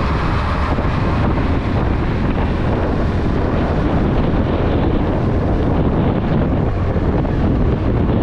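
Wind rushing over the microphone of a moving motorbike, a loud, steady rumble.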